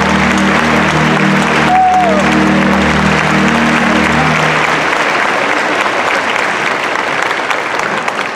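Large audience applauding, with a short rising-and-falling whistle about two seconds in. Under the applause, the music's held closing chord fades out about five seconds in, and the clapping turns more scattered near the end.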